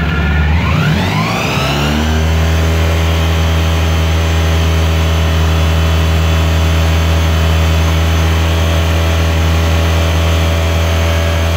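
Honda ST1100's V4 engine running. The revs rise over about a second and a half, then hold steady at a higher rpm.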